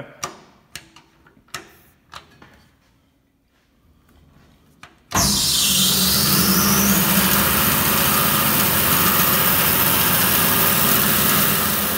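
A few faint knocks and clicks, then about five seconds in a 20-inch bandsaw is switched on. It comes up to speed and runs steadily and loudly, with the blade free-running and not yet cutting.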